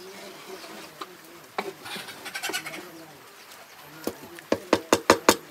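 A wooden paddle scraping through thick cooked mash in a large metal pot, then knocked sharply against a metal pot about six times in quick succession near the end, shaking the mash off. Birds call faintly behind.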